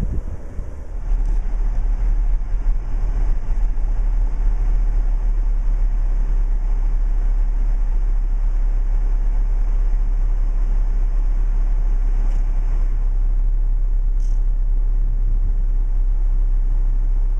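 Blizzard wind buffeting the camera microphone: a loud, steady low rumble that starts about a second in.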